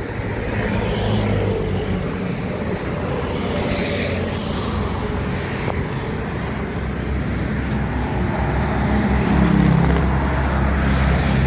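Street traffic: motor vehicles running and passing on the road, with one passing louder near the end.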